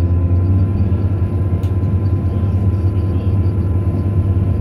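Steady low drone of a FEVE series 2900 diesel multiple unit running and gathering speed, heard from inside the passenger cabin, with a few faint clicks from the running gear.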